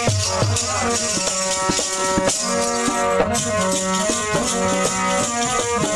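Instrumental passage of Sikh kirtan between sung lines: held melody notes that step from one pitch to the next over regular drum strokes, with a steady high rattle throughout.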